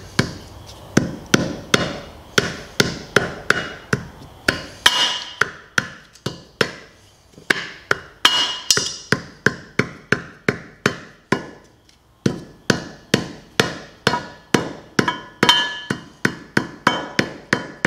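Hammer tapping a new seal into the cast-aluminium bearing housing of a Speed Queen Horizon washer: a long run of light, even blows, about two to three a second, some with a short metallic ring, with two brief pauses.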